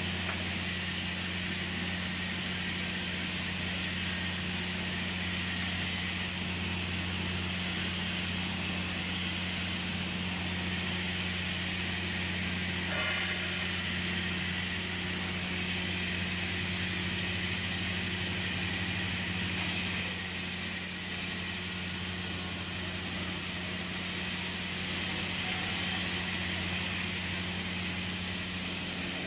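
TIG welding machine humming steadily with a constant hiss. The hiss grows brighter for a few seconds about two-thirds of the way through.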